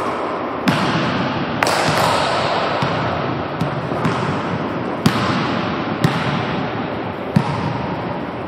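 A basketball thudding and bouncing on a hardwood gym floor: about seven irregular hits, each ringing out in a long echo. A steady hiss runs underneath.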